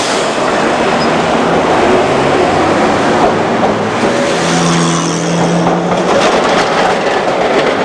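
Melbourne W-class tram running past on street track: steady running noise of its wheels and motors, with a steady hum about halfway through and a run of clicks from the wheels on the rails near the end as it goes by close.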